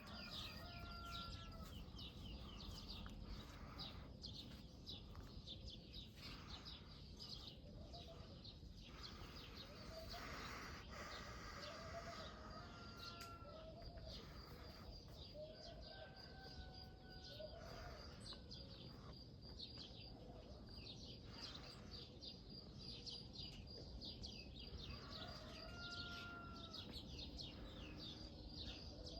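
Faint morning farmyard ambience: small birds chirping and twittering continuously, with chickens calling now and then.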